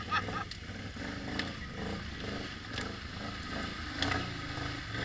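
ATV engine running steadily, with a few short knocks over it.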